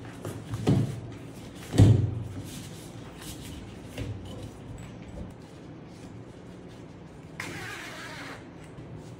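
Handling noise from a bed safety rail being assembled: a fabric panel and its tubular frame rustling and knocking, with two sharper knocks in the first two seconds and a few lighter clicks. Near the end comes a rustling scrape about a second long.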